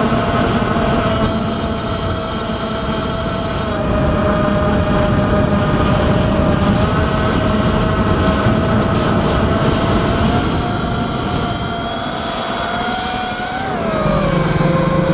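Brushless motors and propellers of an FPV quadcopter, the Nighthawk 280, whining steadily over a rushing noise, as picked up by the onboard camera. The pitch falls and rises again near the end as the throttle changes.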